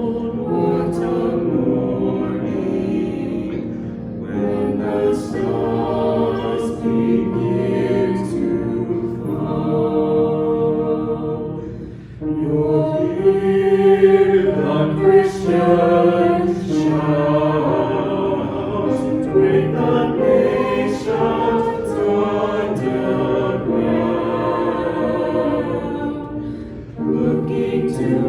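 A choir singing in harmony, with short breaks between phrases about twelve seconds in and again near the end.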